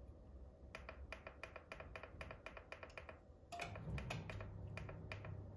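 Quick, even clicks from the Saladmaster oil-core electric skillet's temperature control as it is set to 165 °C, about five a second, with a short break past the middle. A low hum joins in when the clicking resumes.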